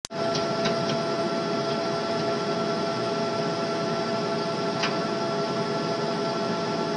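M1A1 Abrams tank's AGT1500 gas turbine engine idling: a steady whine of several held tones over a rushing hiss, with a few faint clicks in the first second and one more about five seconds in.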